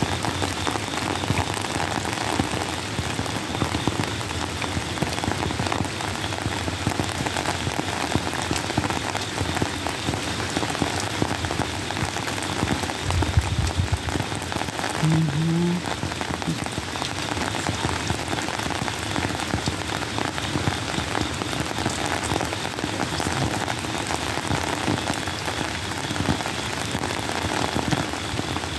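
Steady rain falling, a dense patter of drops on wet pavement, with a brief low rumble about thirteen seconds in.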